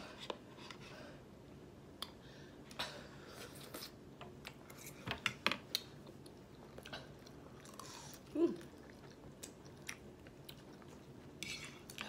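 People chewing mouthfuls of spicy instant noodles, with scattered small clicks and crackles as a fork works in a bowl. A brief vocal sound about eight seconds in.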